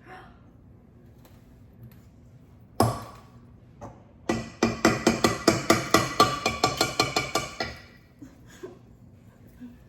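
Kitchenware being struck: one sharp knock, then about a second later a quick run of some twenty sharp, ringing knocks at about six a second that lasts three to four seconds.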